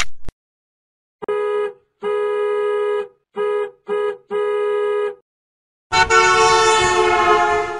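Horn sound effect: five honks of one steady pitch in a short-long-short-short-long rhythm, then a longer, two-toned blast near the end.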